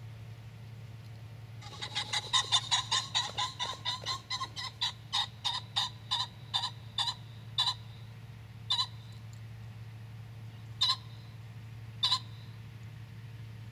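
A cock pheasant calling: a rapid run of harsh clucking notes that starts about two seconds in, then slows to single calls a second or two apart.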